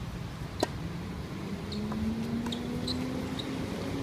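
A tennis racket hits the ball on a serve with one sharp crack about half a second in. Several short high squeaks follow as play goes on, over a steady low hum that slowly rises in pitch.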